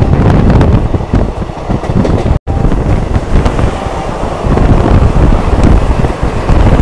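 Wind buffeting the earphone microphone over the running rumble of a moving express train, heard from on board. The sound cuts out for an instant about two and a half seconds in.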